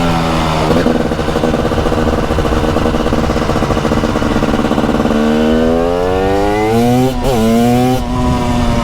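TM SMR 300's 300cc two-stroke single engine under way: the revs rise briefly, hold steady, then climb again from about five seconds in, with a brief break near seven seconds and a drop about eight seconds in.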